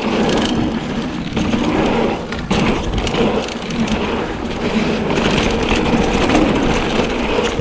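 Trek Fuel EX full-suspension mountain bike riding along a dirt trail: tyres crunching over the ground, with steady noise and many small clicks and rattles from the bike.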